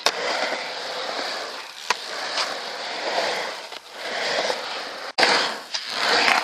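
Skateboard wheels rolling on concrete: a steady rough rumble that swells and fades, with a couple of sharp clicks about two seconds in. The sound cuts out for an instant a little after five seconds.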